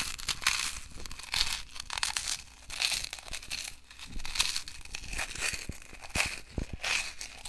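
Irregular rustling and crinkling, a dense scatter of small crackles and scrapes that comes and goes in uneven bursts.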